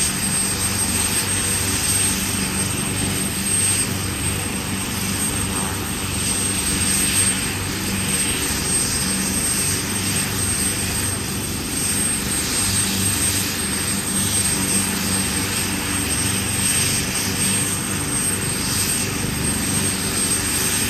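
Helicopter running steadily: an even rush of rotor and engine noise over a low, steady hum.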